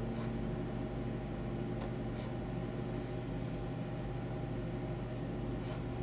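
Steady low hum with a faint hiss underneath, unchanging throughout: room tone from a recording setup.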